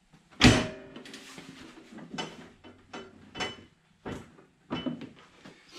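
A Fimco ATV broadcast spreader being set onto its steel tube bracket: a loud metal clank with a brief ring about half a second in, then a series of lighter knocks and rattles as it is shifted into place.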